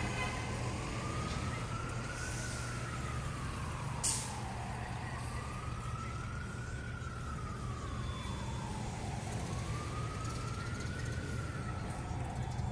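Emergency vehicle siren sounding a slow wail, rising and falling about three times, over the steady low rumble of street traffic. A brief sharp click comes about four seconds in.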